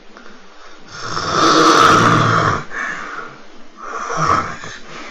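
Loud snoring of a man with severe obstructive sleep apnea, from a sleep-study recording: one long snore about a second in, then shorter snores near three and four seconds. This marks the ventilation phase, breathing starting again after an apnea that the doctor puts down to hugely enlarged tonsils.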